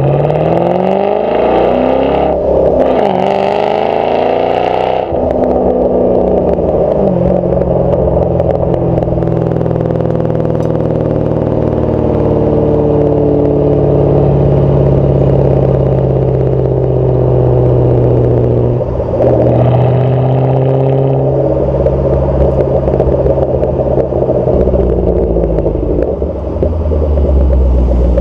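Exhaust of a 2008 Ford Mustang GT's V8 through GT500KR/FR500S mufflers, heard at the tailpipe while driving. The revs climb twice in the first five seconds with a gear change between, then it settles to a steady cruise. The revs rise again briefly about nineteen seconds in and drop off near the end.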